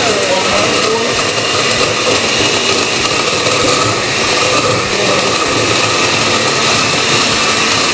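Countertop blender running steadily, grinding chopped coconut with water into coconut milk.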